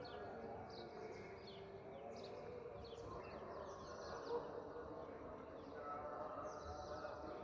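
Small birds chirping: many short, quick falling chirps, thick at first, thinning in the middle and returning near the end, over a faint voice.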